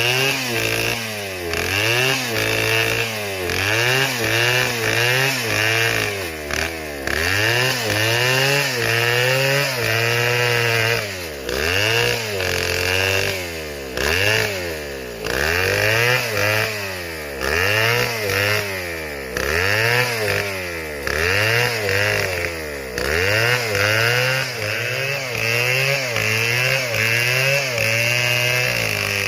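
Stihl MS 720 chainsaw cutting wood, its engine speed rising and falling over and over, about once every second and a half.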